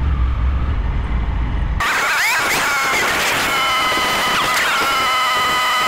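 Low motorcycle engine rumble with wind noise for about two seconds. It cuts off abruptly to a different sound: several steady high tones with repeated sliding pitch sweeps.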